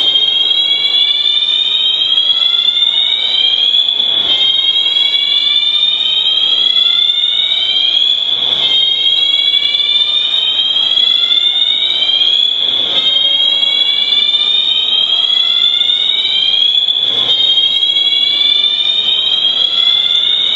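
Building fire alarm sounding a slow whoop: a loud tone that rises steadily over about four seconds, then drops back and rises again, about five times in a row.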